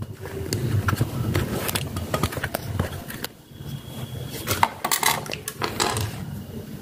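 Handling noise with scattered small clicks and knocks, heaviest near the end: scooter CVT variator roller weights being set down one by one on a tile floor.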